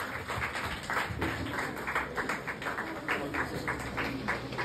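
A few scattered, uneven handclaps over faint background music.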